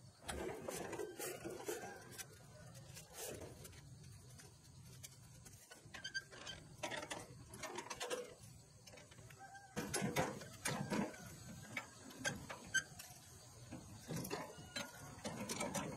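Irregular metal clicks, knocks and light rattles from a walk-behind tiller being handled on its cart, its engine not running. The knocks come thicker and louder about ten seconds in.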